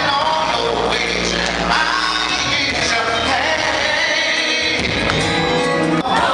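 Live gospel music: singing over a band with held bass notes. There is a brief dropout about six seconds in.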